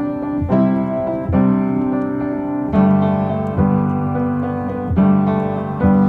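Background music: a piano playing sustained chords, a new chord struck about every second, with no singing.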